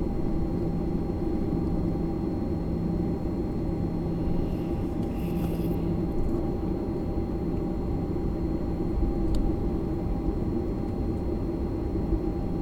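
Steady airliner cabin noise: a low rumble of engines and airflow with a few steady hums, a brief hiss about five seconds in, and one light click about nine seconds in.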